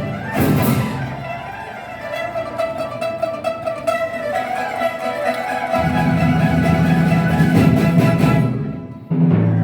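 Chinese traditional orchestra playing: a sharp percussive hit, then a sustained bowed-string melody, with low parts joining about halfway through. Near the end the music dips briefly before a loud new entry.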